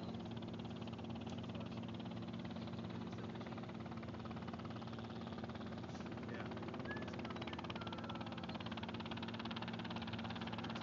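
An engine idling steadily: a low, even hum that holds its pitch and level throughout.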